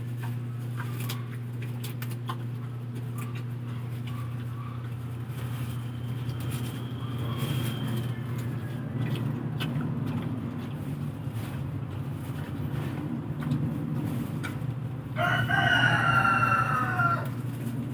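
A rooster crows once near the end, a single call of about two seconds, over a steady low hum.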